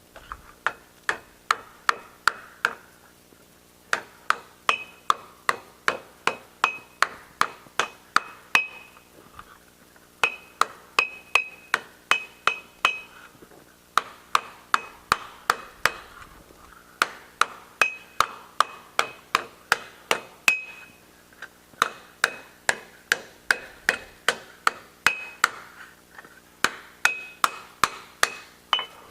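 Rounding hammer striking a steel ring being forged in a swage block: steady blows about three a second, in runs broken by short pauses, many of them with a metallic ring.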